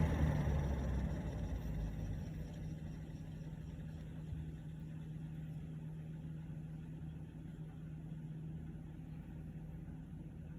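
Lasko 3733 box fan coasting down after being switched off from medium. Its whir falls in pitch and loudness over the first two seconds or so, then settles into a faint, steady low hum.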